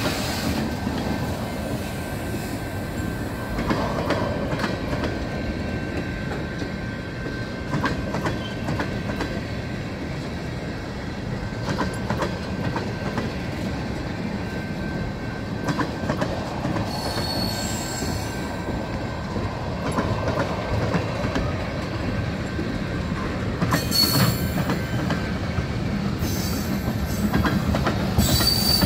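Freight train boxcars and tank cars rolling past close by: a steady rumble of steel wheels on rail with clicks over the joints. In the second half come a few brief, high wheel squeals.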